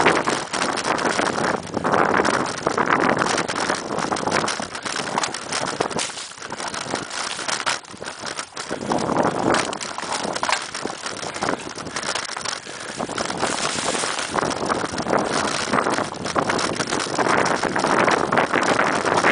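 Mountain bike ridden fast over a bumpy dirt singletrack: tyres on the dirt and the bike rattling and knocking over roots and bumps, with wind buffeting the on-bike camera's microphone in swells.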